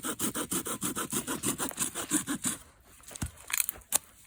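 Hand saw cutting through wood in quick back-and-forth strokes, about four or five a second, stopping about two and a half seconds in; a few sharp clicks follow near the end.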